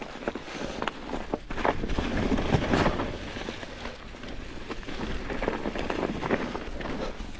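Canyon Lux Trail mountain bike on Maxxis Forekaster 29x2.20 tyres riding over dry leaves on forest dirt: tyre and leaf crackle with many short knocks and rattles from the bike over bumps, loudest about two to three seconds in. Wind noise on the microphone underneath.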